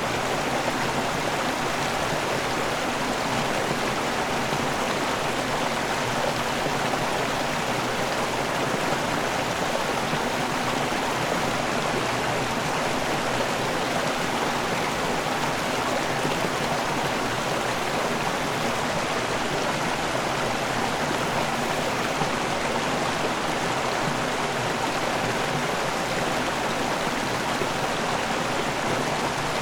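River water rushing over a small waterfall: a steady, even rush of flowing water.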